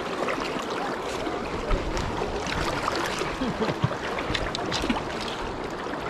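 Fast river current rushing and splashing, with scattered short sharp splashes.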